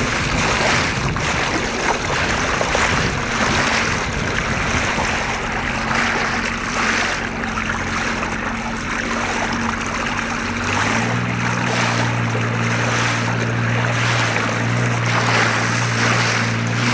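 Water rushing and splashing around feet and a hand trailed over the side of a moving boat, over the steady hum of the boat's motor. The motor's note changes about eleven seconds in.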